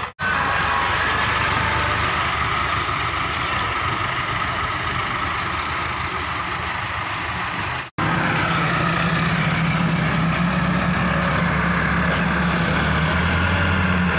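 Massey Ferguson 375 tractor's diesel engine working hard under load, pushing sand with its front loader blade, a steady engine drone. The sound drops out briefly just after the start and again about eight seconds in, after which the low engine tones are stronger.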